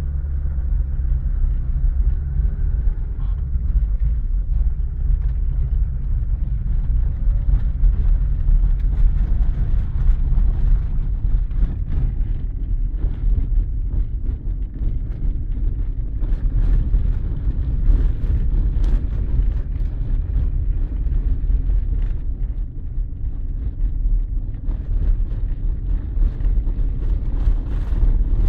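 ZAZ 1103 Slavuta driving on the road, a steady low rumble with irregular short knocks: the left-side knock that the owner is trying to diagnose.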